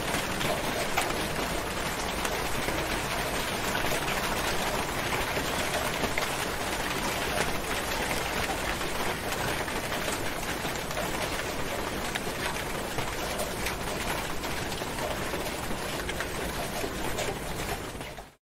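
Steady rain falling, an even hiss dotted with many individual drop ticks, fading out quickly near the end.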